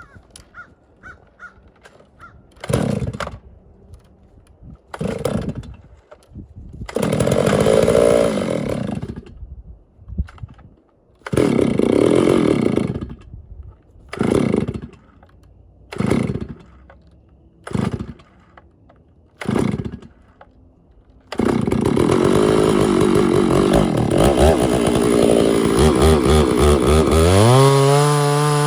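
Two-stroke chainsaw engine running in a string of short bursts that die back down. About two-thirds of the way in it runs continuously, then revs up to a steady high speed near the end.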